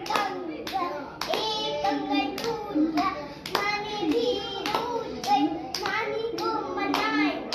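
Hand-clapping game: palms clapping together in a steady rhythm, about two claps a second, while a young girl sings the clapping rhyme.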